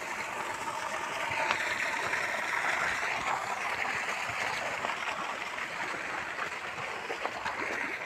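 Water gushing from a pipe outlet in a concrete tank wall and splashing into the tank below, a steady rushing sound.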